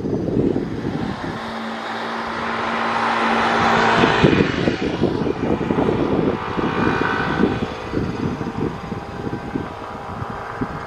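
Twin-turboprop airliner on final approach, its engine and propeller noise swelling to a peak about four seconds in and then easing off. Wind buffets the microphone throughout with an uneven low rumble.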